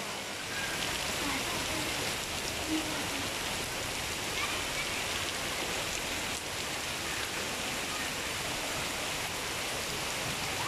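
Heavy rain falling steadily, splashing on standing water on a road and on tree and banana leaves.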